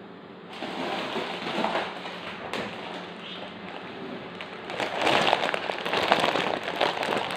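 Clear plastic bag of dried pancit noodles crinkling as it is handled, getting louder from about five seconds in.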